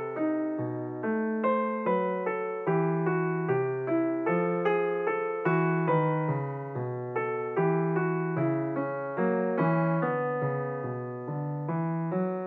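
Background piano music: a gentle melody of struck notes, about two a second, each fading before the next.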